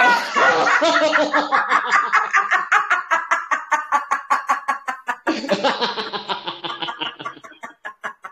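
Loud, deliberate laughter on an 'a' vowel, laughter-yoga style, pushed out from the belly in rapid ha-ha-ha pulses about five a second, heard over a video call.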